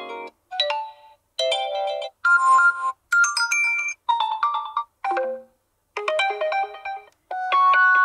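OPPO A1K phone speaker playing its built-in notification tones one after another as each is previewed: about eight short chiming jingles, each lasting a second or less, with brief silences between them.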